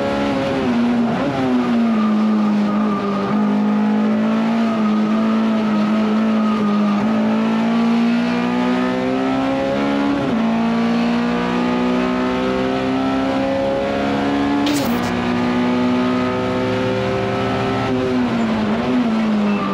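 Honda S2000 race car's four-cylinder VTEC engine at full throttle, heard from inside the cockpit. The engine note climbs slowly and drops sharply at upshifts about a second, ten and fifteen seconds in, with a brief dip near the end.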